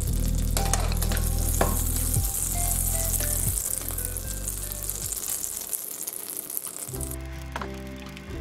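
Butter melting and sizzling in a hot nonstick frying pan on high heat: a steady high hiss of frying that cuts off sharply about seven seconds in.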